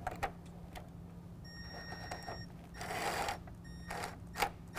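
Cordless drill/driver run slowly in two short spurts, a thin high motor whine, backing 10 mm nuts off the grille's plastic studs. Sharp clicks of the tool and plastic, and a brief louder rush of noise about three seconds in.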